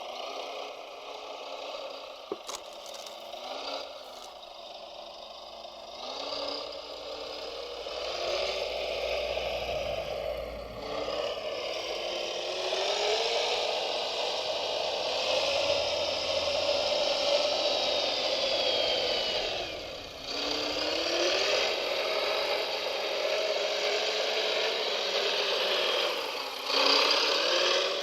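Small electric motors and gearboxes of radio-controlled construction models whining and rattling, the whine rising in pitch as they speed up. It stops briefly about twenty seconds in and winds up again. There is a sharp click a couple of seconds in.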